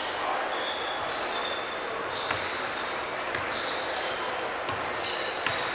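Basketball game sounds on a hardwood gym court: a few scattered thumps of the ball bouncing and short squeaks of sneakers as players run, over the hall's steady noise.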